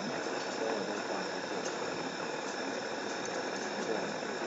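Steady hiss of background noise with faint, indistinct voices under it.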